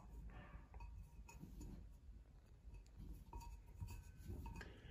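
Near silence with faint handling sounds: a hand turning a large porcelain censer on a cloth, giving a few light scrapes and small clicks.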